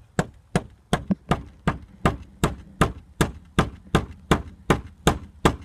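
Hammer driving a nail into a wooden fence board: a steady run of about fifteen blows, roughly two and a half a second.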